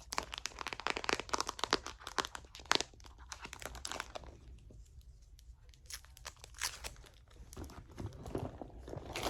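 Close-up crinkling and crackling handling sounds, many small rapid crackles in dense runs, easing off in the middle and picking up again for the last few seconds.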